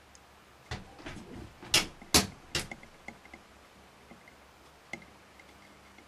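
A handful of sharp clicks and taps as a soldering gun and wire are handled against a Deans connector clamped in pliers on a metal pot. They are loudest about two seconds in and are followed by a few faint light ticks.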